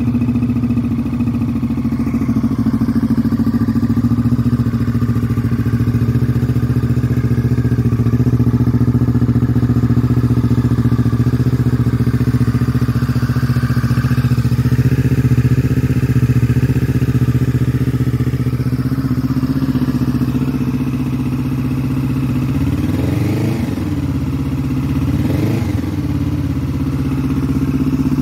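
Kawasaki Z650RS parallel-twin engine, fitted with an IXIL RC aftermarket exhaust, idling steadily just after being started. Near the end it gets two short blips of the throttle, its pitch rising and falling back each time.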